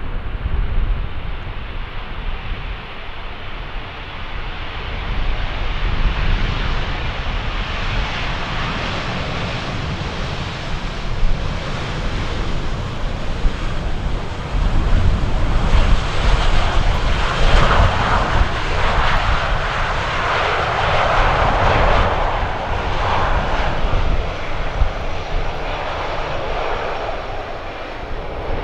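Jet airliner engines roaring as the plane passes, the noise swelling about halfway through, peaking for several seconds, then easing. Strong wind rumbles on the microphone throughout.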